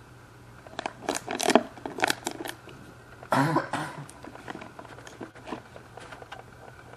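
Empty plastic bottle crinkling and crackling as a young puppy mouths and pushes it: a run of sharp crackles, a louder crunch about three seconds in, then fainter crackles.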